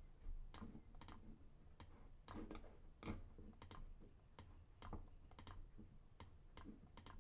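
Faint computer mouse and keyboard clicks while editing in Blender, about two a second at uneven spacing.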